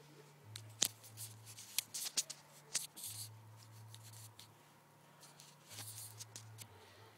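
Handling noise from a handheld camera being picked up and repositioned: a run of clicks and rustles against the microphone, thickest in the first few seconds and again briefly near the end, over a faint low hum.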